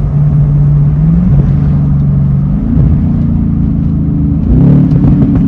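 A tuned Chevrolet Camaro SS's 6.2-litre L99 V8 running as the car drives, a loud, deep exhaust drone whose pitch steps up and down a few times.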